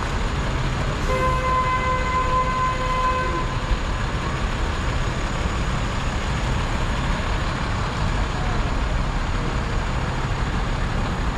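Steady city street traffic noise with a low rumble, and a vehicle horn held once for about two seconds shortly after the start.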